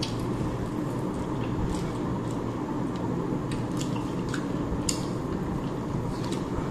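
Eating sounds: scattered small clicks and squishes of food being handled and chewed from a plate, over a steady low hum.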